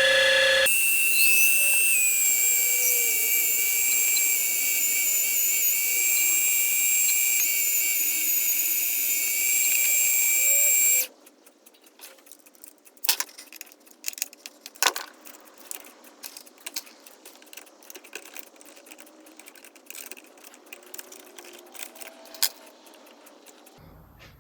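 Micro metal lathe's small motor running with a steady high-pitched whine while a drill bit in the tailstock chuck bores into the spinning workpiece; the pitch wavers slightly now and then. The motor stops suddenly about 11 seconds in, followed by faint clicks and taps of handling.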